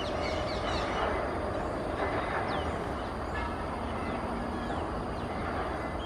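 Steady rumbling background noise, with short high bird chirps scattered through it: a few close together near the start and single ones later.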